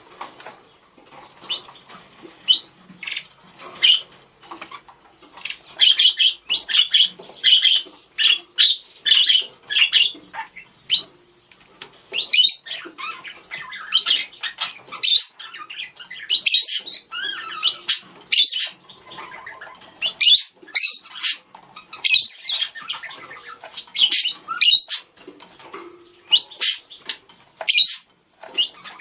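Budgerigars chirping and calling back and forth in quick, irregular runs of short high chirps and squawks.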